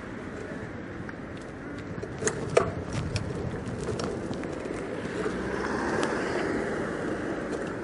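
Bike-share city bicycle rolling over pavement: a steady rumble of tyres and rattle. A few sharp knocks a little over two seconds in are the loudest sounds.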